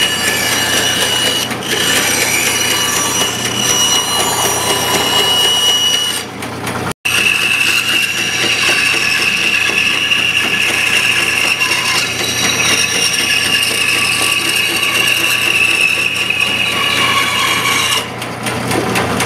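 Homemade band saw running and cutting wood: a steady high whine over the rasp of the blade through a board on a curve, then, after a brief gap about seven seconds in, through a 3.5-inch-thick block of maple, which it cuts with no problem. The blade runs between hardened steel guide blocks. The cutting noise eases near the end.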